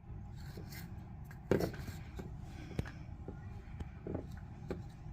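Scattered knocks and rubbing from a handheld camera phone being handled and carried, over a low steady rumble. The loudest knock comes about a second and a half in.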